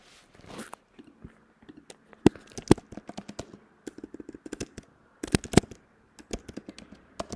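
Computer keyboard typing: quick irregular runs of keystroke clicks with short pauses between them, and a few louder strokes standing out among them.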